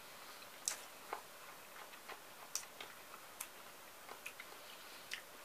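A person chewing crisp sliced cucumber salad: faint, irregular, sharp mouth clicks and crunches, about eight scattered through a few seconds.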